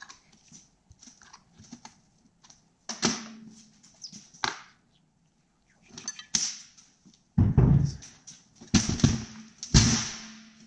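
Metal two-stroke snowmobile engine parts clanking and knocking against each other and the steel parts tray as they are handled, a string of separate sharp clanks, the loudest few near the end.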